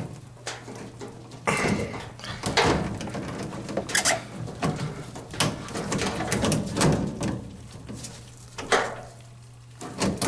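Irregular knocks, clunks and scrapes of a washing machine being handled and set back into place, over a steady low hum.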